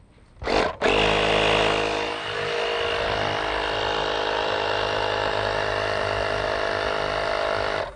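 Portable air compressor switching on about a second in and running steadily, pumping air into a sealed PVC-pipe shower tank, then cutting off just before the end.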